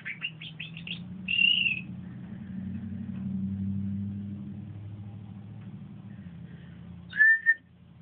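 Domestic canary singing: a quick run of short chirps, a loud warbled note about a second and a half in, and one more loud whistled call near the end.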